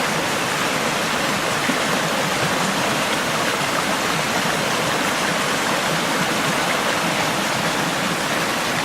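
Creek water rushing and splashing over rocks, a steady, loud babble.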